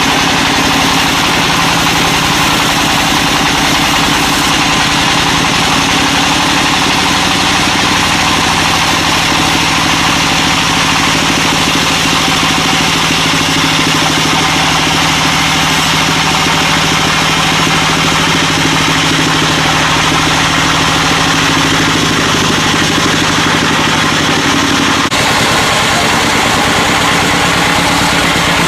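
Sawmill engine running steadily and loudly, with a dense mechanical noise over its hum. The sound changes abruptly about 25 seconds in.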